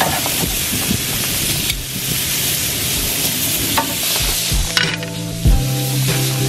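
Sausages sizzling on a barbecue grill, a steady frying hiss with a few sharp clicks of metal tongs against the grate. Steady low music tones come in near the end.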